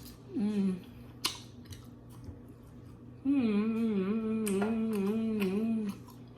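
A woman hums with her mouth closed while eating: a short falling 'mm' near the start, a sharp click about a second in, then a long hum of nearly three seconds whose pitch wavers up and down.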